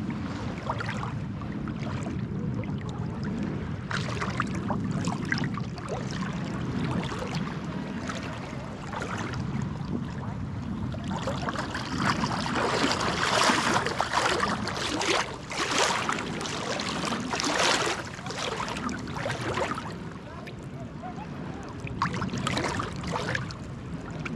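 Shallow seawater lapping and sloshing around a camera held right at the surface, with a run of louder splashes about halfway through and another brief one near the end.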